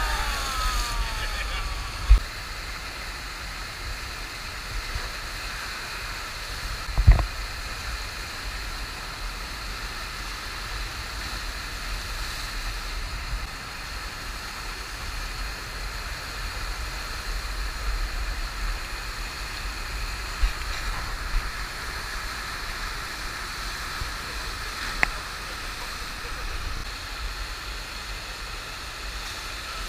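Steady rush of a FlowRider surf machine's sheet of water pouring up the ramp, with a few low thumps, the loudest about seven seconds in.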